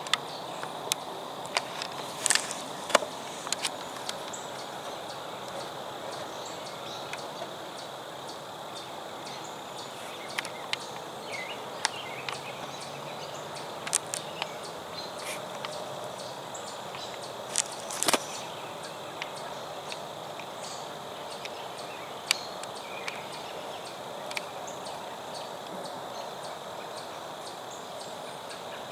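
Woodland ambience: a steady hiss with a faint, even high-pitched hum, broken by scattered short sharp clicks and ticks.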